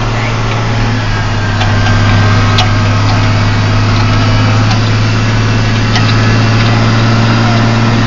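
Tractor engine running steadily with a low drone, heard from inside the cab, growing a little louder about two seconds in, with a few light clicks and rattles.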